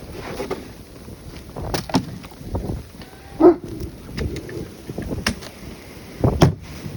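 Wind buffeting the microphone, with irregular crunching steps on icy snow. One sharper crunch with a short squeak comes about three and a half seconds in.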